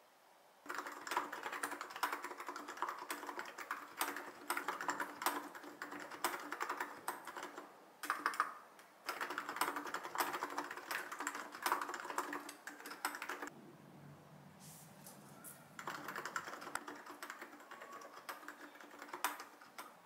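Fast typing on a mechanical keyboard: a dense run of key clacks that breaks off briefly about eight seconds in, fades out around thirteen seconds, and picks up again for a few seconds near the end.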